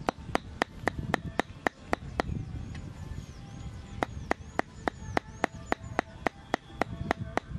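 Cleaver chopping raw meat on a round wooden chopping board: steady knocks about four a second, with a pause of under two seconds in the middle before the chopping resumes.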